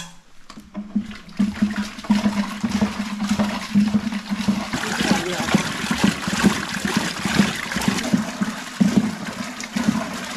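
Traditional rope-pulled wooden churn (madani) spinning back and forth in a clay pot of watered-down fermented buffalo-milk curd, the liquid sloshing and splashing with each pull as it is churned into butter.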